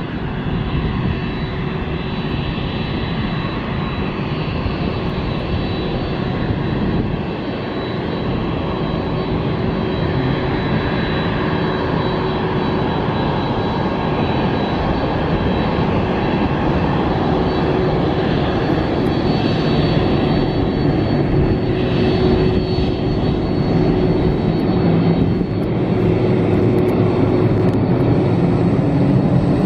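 Boeing 767 airliner's twin jet engines running at low thrust as it taxis, a steady rumble with a high whine that grows slowly louder as the aircraft draws near.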